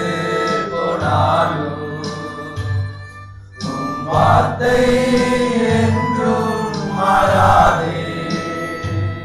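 Background music with choir-like singing voices; it briefly drops in level about three seconds in before the voices swell again.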